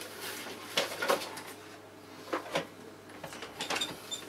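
Rummaging: a few short knocks and light clicks of small objects being moved about.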